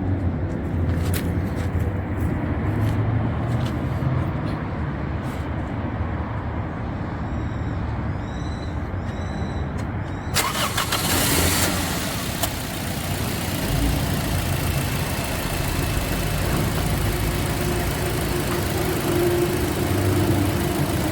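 2007 Toyota Yaris engine idling steadily, with the bonnet open, during an ignition-coil misfire check. A few sharp clicks sound in the first half, and a steady hiss comes in suddenly about halfway.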